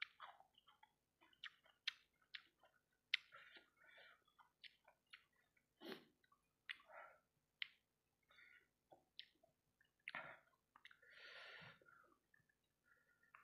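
A person chewing saucy fried rice balls: irregular wet mouth clicks and smacks, with a longer squelching stretch about eleven seconds in.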